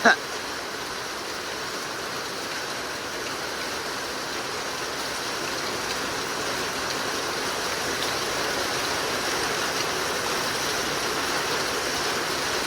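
Heavy rain from a squall line pouring down steadily, growing slightly louder about halfway through.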